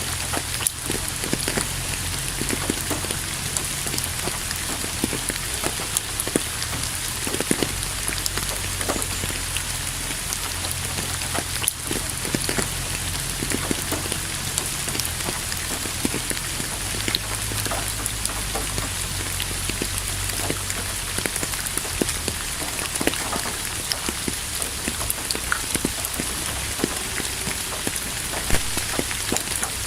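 Steady rain falling, an even hiss with many individual drops ticking on a surface.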